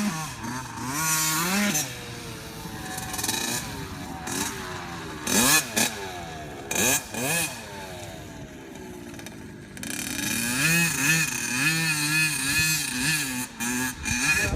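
Dirt bike engine revving up and down as it is ridden round the track, the pitch climbing and falling with each gear and throttle change. Around the middle the pitch sweeps steeply down as it passes by, and near the end it runs louder again.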